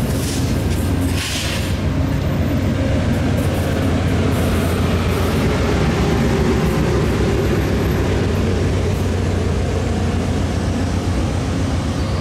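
VIA Rail passenger coaches rolling past on an arriving train, a steady rumble of wheels on the rails. There are two short bursts of hiss in the first second and a half.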